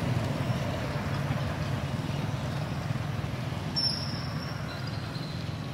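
Steady low rumble of vehicle engines from nearby traffic, with a brief high-pitched tone about four seconds in.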